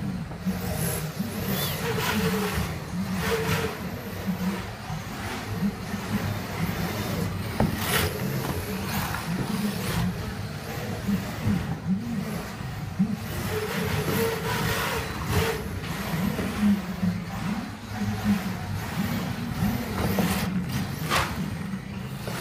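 Electric radio-controlled drift car running on a carpet track, its motor whine rising and falling with the throttle, with a few sharp knocks.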